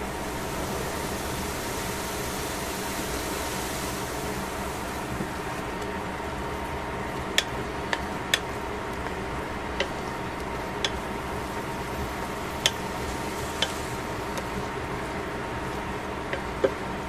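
Vegetables and tuna frying in a stainless steel pan with a faint sizzle over a steady hum. From about seven seconds in, a wooden spatula stirs the food and knocks sharply against the pan several times at irregular intervals.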